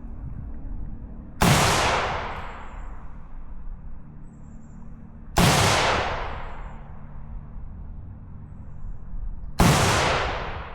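Three rifle shots about four seconds apart, each followed by a long echo that trails away.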